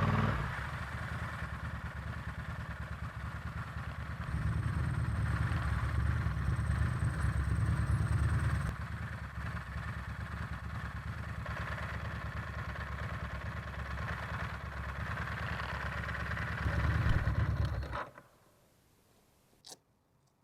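Ducati Monster S4R's L-twin engine running, its level stepping up and down a few times, then cutting off suddenly about eighteen seconds in. A single sharp click follows shortly after.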